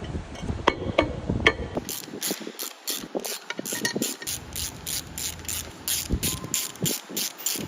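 A few metal clinks, then a ratchet wrench being worked, with fast, even clicks at about four a second.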